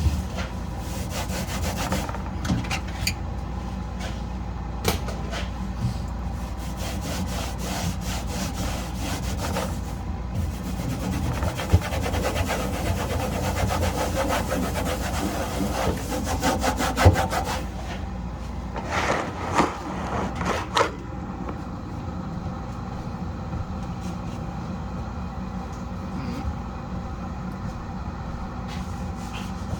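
Scrubbing the inside of a fridge with a layered Norwex cloth: quick, repeated back-and-forth rubbing strokes, densest midway, with a few knocks against the fridge.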